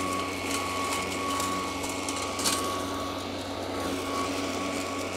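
Honda cordless battery-powered self-propelled lawn mower with an 18-inch steel deck, running steadily while cutting grass: an even electric motor whine with a high steady tone over the noise of the blade and grass, and one brief tick about halfway through.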